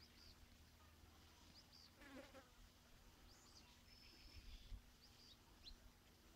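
Near silence: faint rural ambience with scattered short, high chirps and a brief buzz about two seconds in.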